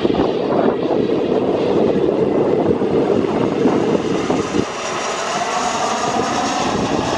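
Twin-engine business jet flying low overhead on landing approach with its gear down: steady loud engine noise, with the low rumble thinning and a high whine coming in about halfway through as it passes.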